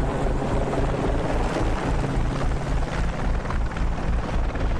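Background music with a steady low beat, mixed with the running engine and rotor noise of a CH-47 Chinook twin-rotor helicopter.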